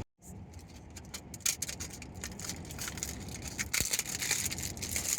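Plastic packaging crinkling and crackling as a small sealed toy packet is worked open by hand, with a busy run of sharp little crackles that thickens after the first second or so.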